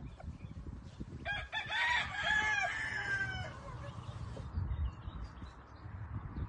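A rooster crows once, a multi-note call of about two seconds starting a little over a second in. A low rumble runs underneath.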